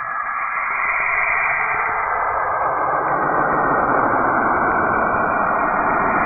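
Saturn's radio emissions converted into audio: a steady rushing, hissing noise that grows fuller and a little louder over the first two or three seconds.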